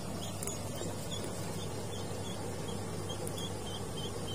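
Steady rhythmic chirping of a night-calling animal, about three short high-pitched chirps a second, over a low steady hum.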